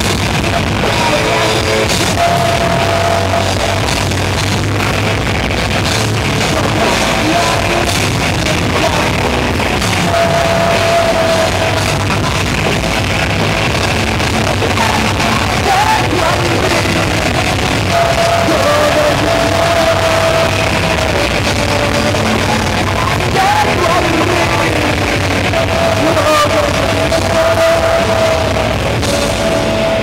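A rock band playing live, loud and dense: electric guitars, bass and drums, with a singer holding long notes that come back every several seconds.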